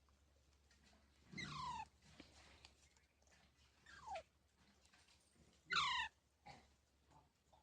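Indian ringneck (rose-ringed) parakeet giving three short calls that each fall in pitch, about a second and a half in, at four seconds, and loudest near six seconds.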